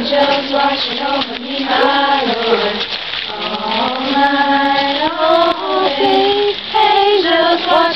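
A group of voices singing a slow song together, with long held notes that slide between pitches.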